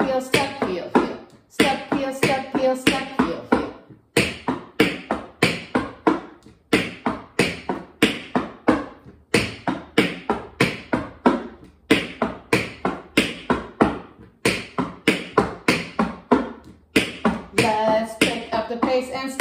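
Tap shoes striking a hardwood floor in a quick step-heel-step drill: groups of sharp taps broken by short pauses about every two and a half seconds.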